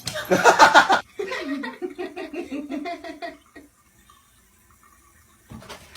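A loud, noisy burst lasting about a second, then a run of laughter in rapid short pulses for about two seconds.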